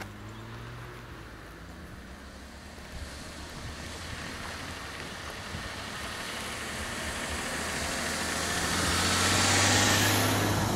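Audi car approaching along a rural road and passing close by. The engine hum and tyre noise grow steadily louder and are loudest near the end as it goes past.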